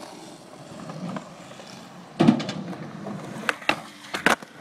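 A skateboard rolls on concrete, with a loud board impact about two seconds in. Several sharp clacks follow near the end as the board hits the metal handrail.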